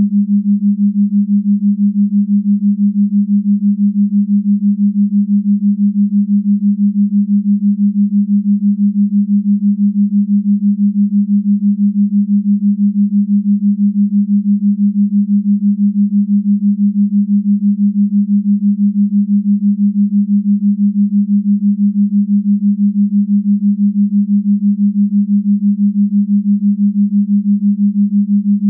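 A single low electronic tone, steady in pitch, pulsing quickly and evenly in loudness.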